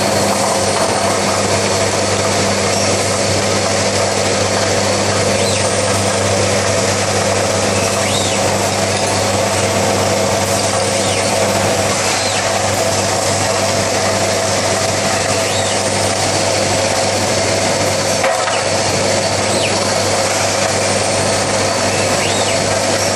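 Steady industrial machine noise from a running transfer machine and its Fanuc six-axis loading robot, with a constant low hum under it and faint short high whines every couple of seconds.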